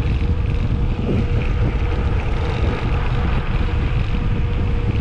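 Wind rumbling on the microphone of a bicycle going downhill at speed, with a faint steady tone underneath.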